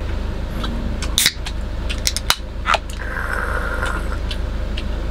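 A FiLite beer can being handled and its ring-pull opened: several sharp clicks and a short hiss, over a steady low hum.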